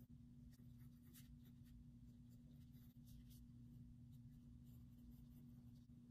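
Faint scratching of a pencil writing on paper in short, irregular strokes, over a low steady hum.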